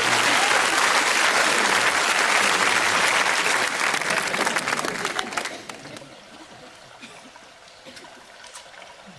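Studio audience applauding, fading away about five to six seconds in.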